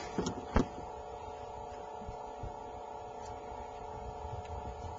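A steady hum with a low rumble underneath, and a few short knocks within the first second.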